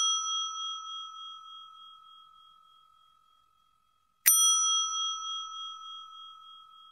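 Pink push-button call bell (service bell) struck by a dog's paw: a bright ding already fading at the start, then a second ding about four seconds in that rings on and fades away.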